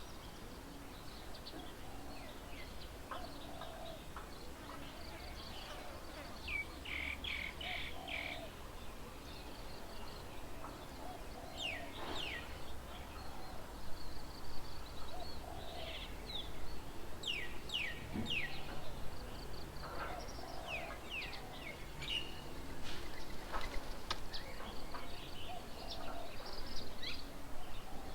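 Several wild birds chirping and calling at once: many quick high chirps and falling notes, with a softer repeated lower call underneath. A faint low hum runs for a few seconds in the middle.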